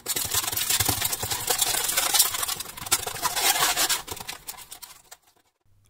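Crumpled aluminium foil crinkling and crackling as gloved hands press and smooth it down, dying away about four and a half seconds in.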